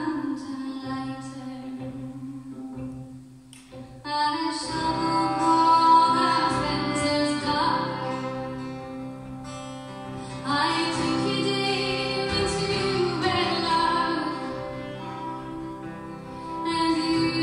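Live acoustic folk music: a woman singing over fiddle and guitars. The playing thins out about three seconds in, then comes back fuller about four seconds in.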